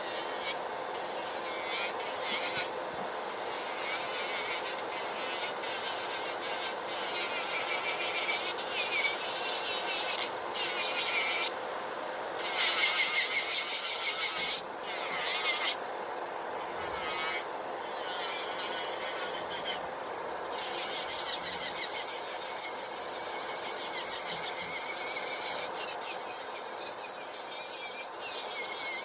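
Electric nail drill with a sanding band bit grinding down an acrylic nail in repeated passes, the high gritty sanding sound breaking off briefly each time the bit lifts, over a steady motor hum. The grinding is loudest in the last third.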